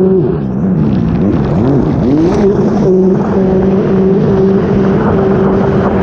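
Sea-Doo race jet ski's four-stroke Rotax engine under way: its pitch dips and rises several times in the first couple of seconds over the chop, then holds steady at high revs. The rush of water and spray runs underneath.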